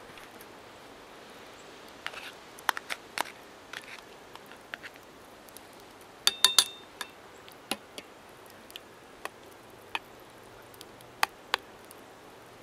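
Metal spoon clinking and scraping against a small metal saucepan while stirring noodles in broth: scattered sharp clinks, with a short ringing cluster about six seconds in.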